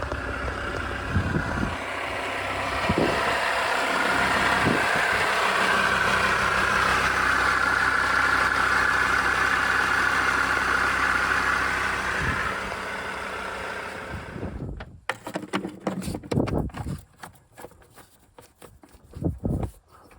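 2003 Mercedes-Benz W211's engine running steadily, then stopping abruptly about fifteen seconds in, after which a few scattered knocks and clicks are heard.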